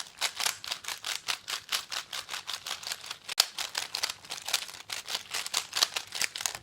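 Speed cube being turned over and over by hand: a quick, steady run of light plastic clicks, several a second, as its layers snap round.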